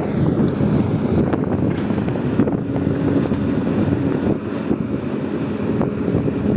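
Heavy earthmoving machine's diesel engine running with a steady low rumble.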